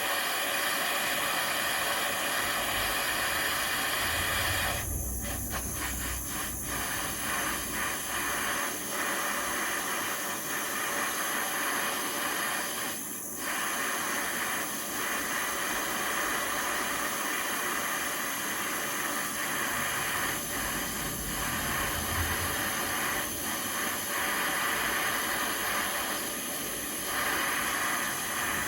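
Gas torch burning with a steady hiss as it heats a steel steering rod.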